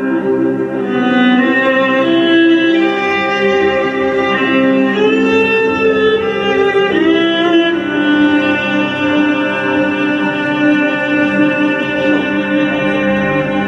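Instrumental intro music: a violin-like lead melody sliding between notes over sustained string chords, before any vocal comes in.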